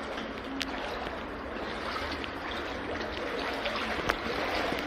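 Shallow brook water running through a brick-lined culvert, a steady splashing, trickling noise, with a couple of sharp clicks.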